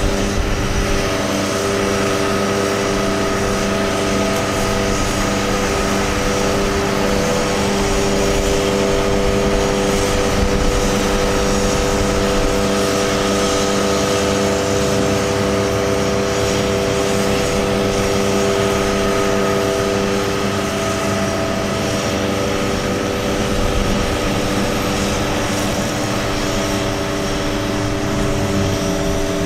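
Truck engine running to drive the hydraulic system of a Palfinger PK32080 articulating crane, with a steady hum and several held tones as the boom is retracted and raised. The tones shift slightly about a second in and again around two-thirds of the way through, as the crane's motions change.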